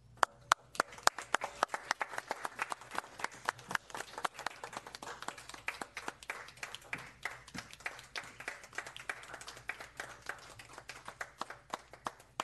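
A small group of people applauding, a dense, steady run of hand claps.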